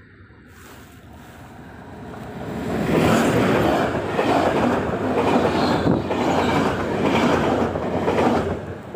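A train passing close by on the track: it grows louder over the first few seconds, then rushes past for about five seconds with a clatter that pulses about once a second, and falls away abruptly near the end.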